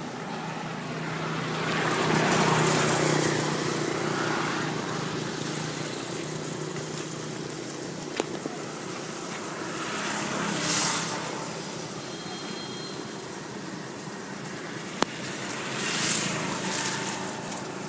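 Outdoor background noise with a vehicle engine humming past about two seconds in; fainter swells of noise come and go later, with a few sharp clicks.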